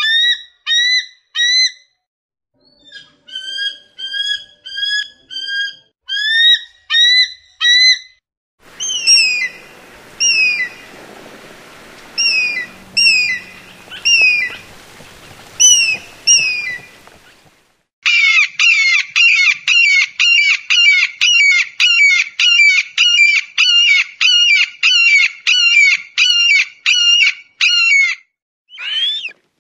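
Eagle calls, several recordings in a row: series of short, high cries, one series heard over a steady background hiss. Near the end comes a fast, even run of about two cries a second lasting some ten seconds.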